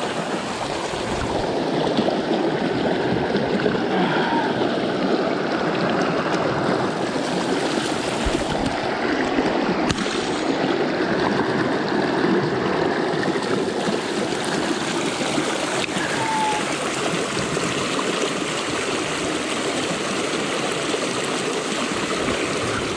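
Rocky mountain brook running over boulders and small cascades: a steady rush of water.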